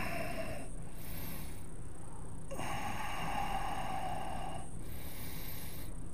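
Slow, audible breathing through the nose of a person holding a yoga pose: two long hissing breaths of about two seconds each, the first ending about half a second in and the second running from about two and a half to nearly five seconds in.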